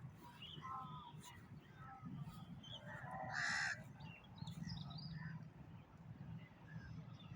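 Birds outdoors: one loud, harsh call lasting about half a second, a little over three seconds in, among scattered short chirps of smaller birds, over a low steady rumble.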